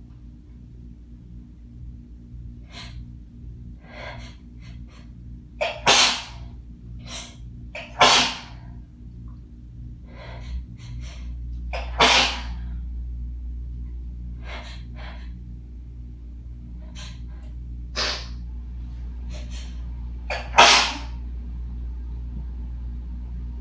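A person sneezing five times, harsh dust-triggered sneezes spaced a few seconds apart, the last the loudest, with shorter sharp breaths between them.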